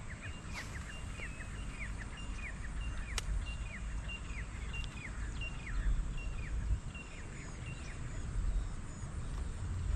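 A bird calling over and over: short, high, falling notes about two a second, dying away near the end. A low rumble runs underneath and swells twice in the second half, with a couple of sharp clicks.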